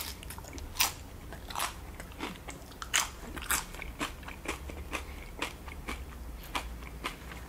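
A person chewing a cheese- and sauce-covered tortilla chip: a steady run of short, crisp crunches, roughly two a second.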